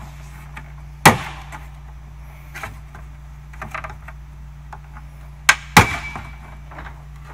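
Plastic trim panel on a Tesla Model S being pulled free, its retaining clips snapping loose: one sharp snap about a second in, a few light ticks, then two more snaps in quick succession about five and a half seconds in.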